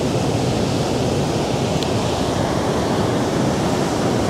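Sea waves breaking and washing in among boulders on a rocky shore: a loud, continuous rush of surf.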